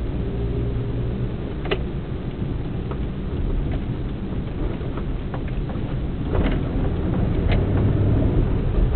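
Steady low rumble of a vehicle driving along a city road, heard from on board, with a few short clicks about two seconds in and again near the end.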